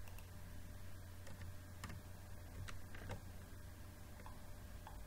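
About half a dozen faint, scattered clicks from a computer keyboard or mouse being used, over a low steady hum.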